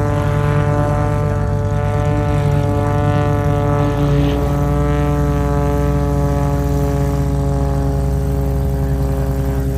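MXS-RH aerobatic monoplane's piston engine and propeller running steadily in flight. The pitch shifts about four seconds in, then slides gently lower.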